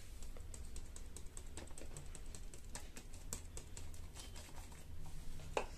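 Faint, irregular light ticks as grains of food colour are sprinkled onto the mawa roll and the ceramic plate, over a low steady hum, with a sharper click near the end.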